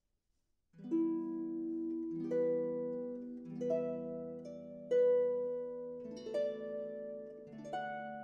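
Background music: slow harp notes, each plucked and left to ring, beginning after a brief silence just under a second in.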